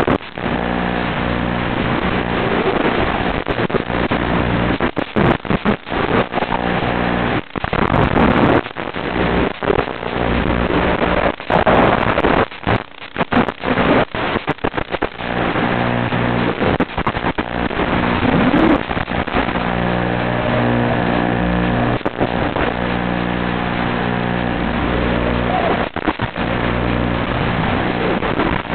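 FPV racing quadcopter's motors and propellers whirring in flight, the pitch wavering with throttle; the sound drops out in several brief gaps in the middle.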